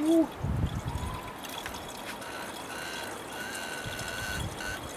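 Antifreeze coolant poured steadily from a plastic pitcher into a truck's plastic coolant overflow tank, a continuous trickling pour while the cooling system is refilled.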